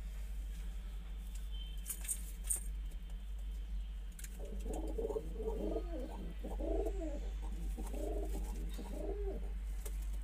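Domestic pigeons cooing: a run of warbling coos from about four seconds in until near the end. A few sharp clicks come about two seconds in, over a steady low hum.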